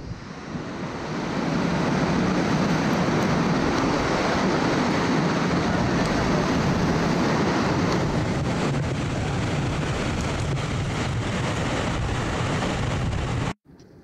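Ocean surf rushing and churning through a narrow rocky channel between sea stacks, a steady dense wash of water noise with wind on the microphone. It swells in over the first second or two and cuts off abruptly near the end.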